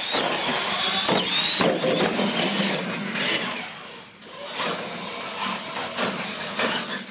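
Two electric RC monster trucks racing across a hard floor: motors and gears whining and tyres rolling, with a couple of sharp thumps about a second in as they land off the launch ramps. Quieter from about four seconds in as they pull away.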